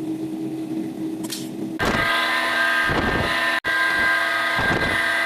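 Factory machinery running. A steady hum gives way, about two seconds in, to a louder, steady high-pitched whine with a hiss under it.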